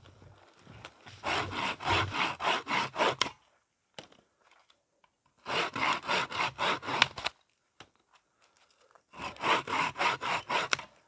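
Small hand saw cutting small dead sticks in three bursts of quick back-and-forth strokes, about four strokes a second. The saw is held blade-up between the knees and each stick is worked across the blade.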